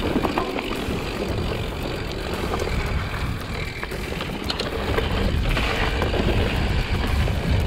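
Mountain bike riding a dirt trail: wind buffeting the microphone and a steady tyre rumble, with scattered clicks and rattles from the bike.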